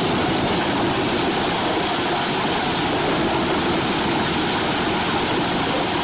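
Eschelbach Biber 92 drum wood chipper running: a steady, even rushing noise from its engine and chipping drum.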